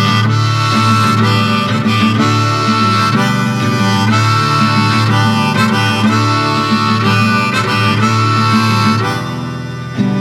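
Background song in an instrumental break without singing: a melody of held notes over a low accompaniment, changing about nine seconds in.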